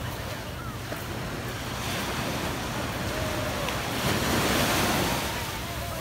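Small surf breaking and washing up the sand, with wind buffeting the microphone. The wash swells loudest about four seconds in, then eases.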